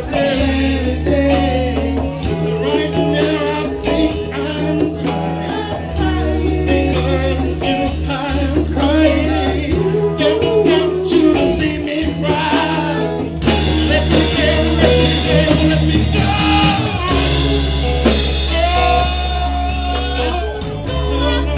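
A live band playing, with electric bass guitar, drum kit and congas.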